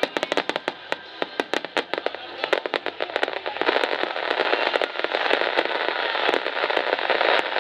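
Starmine fireworks display: a rapid run of sharp pops and bangs, then about three and a half seconds in it thickens into dense, continuous crackling that grows louder.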